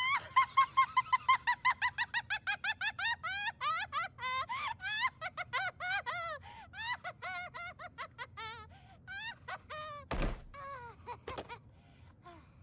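A girl's high-pitched, drawn-out laughing fit: a long string of quick "ha"s for about ten seconds that grows looser and trails off. A short thump follows near the end.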